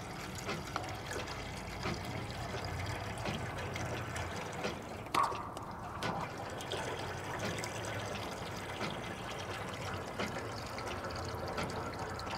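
Engine coolant draining out of a disconnected heater hose and trickling and splashing into a drain pan, running steadily after the radiator cap has been released. A brief knock about five seconds in.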